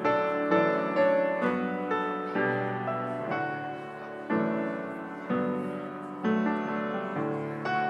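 Solo piano playing slow, gentle music: chords struck about once a second, each fading before the next.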